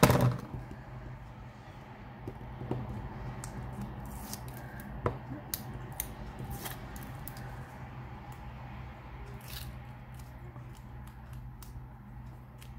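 Hands pressing and rubbing a taped white cardstock panel flat onto a card: paper rustling and scraping, with a loud swipe at the very start and a few small ticks. A steady low hum runs underneath.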